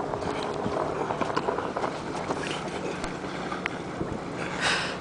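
Low steady hum of a jet ski engine idling, with water lapping and small splashes, and a brief rush of noise near the end.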